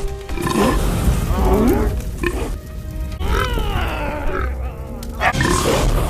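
Animated dragon growling and roaring over background music, with short grunting calls early on and a longer gliding roar about three seconds in.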